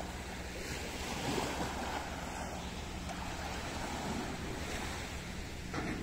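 Small sea waves lapping and washing up on a sandy shore, rising and falling gently, with a low wind rumble on the microphone.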